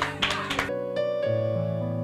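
Keyboard music of sustained, held chords, shifting to a new chord a little past a second in, with a short noisy burst over the first half-second.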